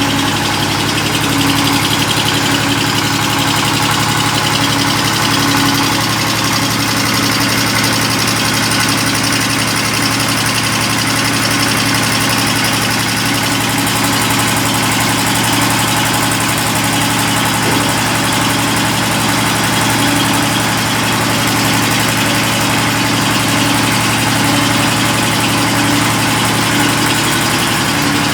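Automatic mawa-making kettle machinery running steadily: a constant motor-and-gearbox hum with a steady tone over an even hiss.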